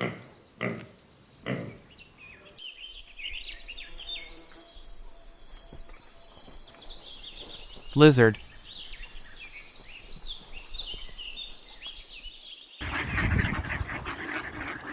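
Piglet grunts and squeals three or four times in the first two seconds. Then a steady high insect trill with scattered bird chirps, giving way near the end to a louder rough noise.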